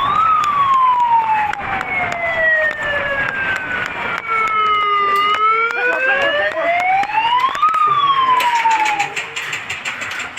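A siren wailing in one slow cycle: a long fall in pitch, a rise, then the start of another fall. Sharp cracks run through it and come thicker near the end.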